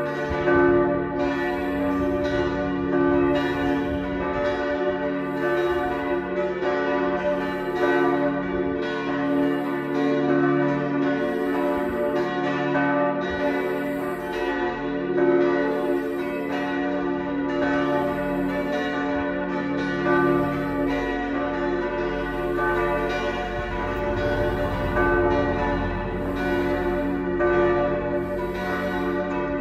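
Church bells ringing together in the tower, fresh strokes coming about once a second over a sustained, overlapping hum of ringing tones.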